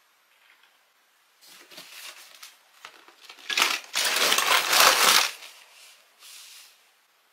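Cardboard box handled and shaken with several small Tomica die-cast toy buses sliding and knocking around inside, a rough scraping rustle that builds and is loudest about four to five seconds in, then dies away.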